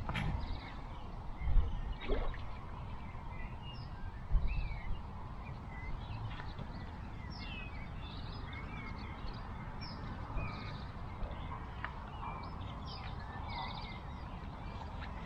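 Small birds chirping and singing in short, scattered calls over a steady low rumble, with two dull low thumps in the first five seconds.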